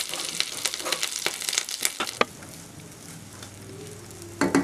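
Curry leaves frying in hot oil in a kadai, crackling and spitting with many sharp pops for about the first two seconds, then a quieter sizzle as onion rice is stirred with a metal spatula, with one short louder burst near the end.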